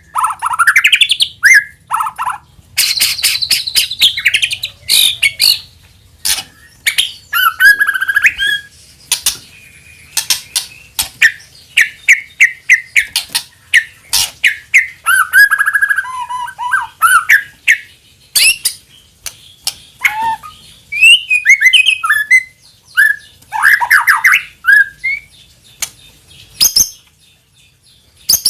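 White-rumped shama (murai batu) singing a loud, varied song of whistled glides and phrases broken by many sharp clicks and rapid chatter, with a short quieter gap near the end.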